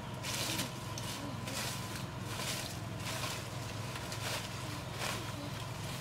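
Leaves and forest-floor litter rustling and crackling in short irregular bursts as wild mushrooms are picked by hand, over a steady low hum.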